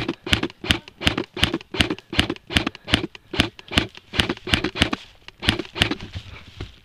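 Running footsteps on the ground, about three strides a second, with the camera jolting at each footfall; the steps grow weaker and uneven about five and a half seconds in as the runner slows.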